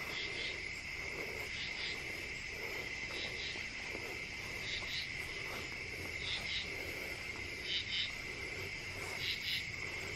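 Night insects calling: a steady high trill of crickets, with a higher pulsed chirp repeating about every second and a half.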